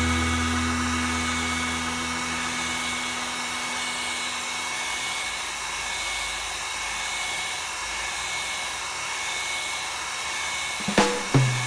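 Hot-air blower (heat gun or hair dryer) running steadily, a hiss with a constant whine. It is the kind used to soften the adhesive during a phone screen replacement. A few sharp knocks near the end.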